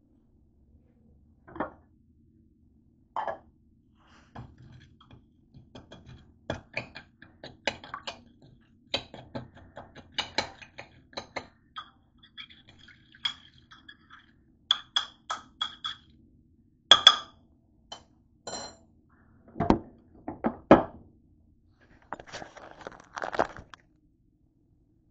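A metal utensil clicking and clinking against a granite-coated nonstick pan, with cookware being handled: a run of short knocks, some with a brief metallic ring. Several heavier thuds come about two-thirds of the way through, and a short scraping rustle follows near the end.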